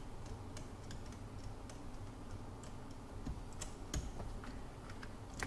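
Light, uneven clicks and taps of a spark plug socket and hand tools on a Sea-Doo Spark engine as new spark plugs are threaded in by hand, with a few sharper clicks in the second half, over a low steady hum.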